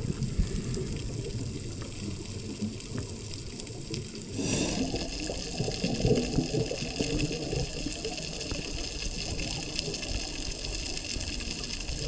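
Underwater water noise on a diving camera's microphone: a continuous low churning with bubbling. About four seconds in it changes to a fuller, hissier noise.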